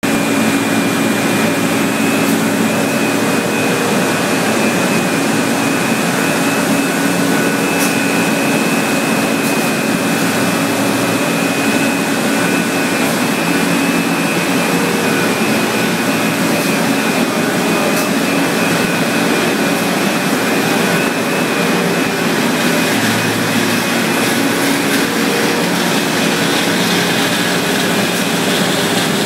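Steady industrial machinery noise on a factory floor: a constant loud drone with a thin high whine over it, and a few faint clicks.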